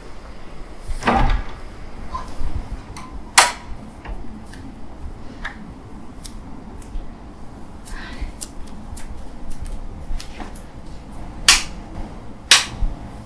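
A wooden bedroom door's handle and latch clicking as the door is opened, followed by scattered light clicks and a few sharper knocks of things being handled in a quiet room.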